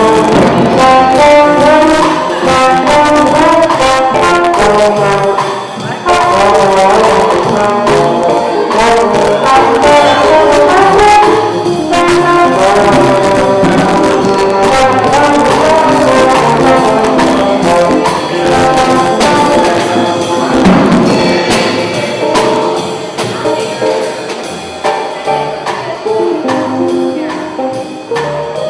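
Small live jazz combo playing: a saxophone carries the melody over upright bass, drum kit and electric keyboard.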